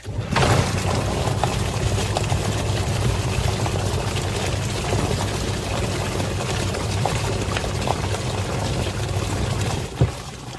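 Twin-tub washing machine's wash motor switching on abruptly and running, with a steady low hum under water churning and sloshing in the tub. It cuts off with a sharp click about ten seconds in.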